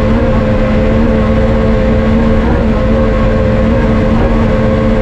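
Rally-raid car's engine running loud at steady high revs, its pitch nearly constant, over a dense haze of road and tyre noise.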